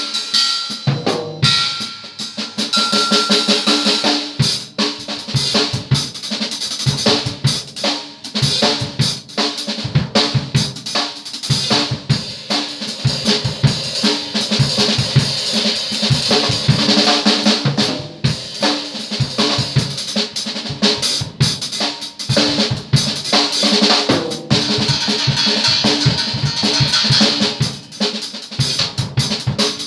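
Acoustic drum kit played in a fast, busy pattern of bass drum, snare and tom strikes, over a sustained bright metallic wash of cymbals.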